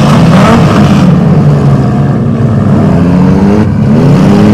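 Several compact four-cylinder demolition derby cars' engines revving hard together, their pitch rising and falling as they drive.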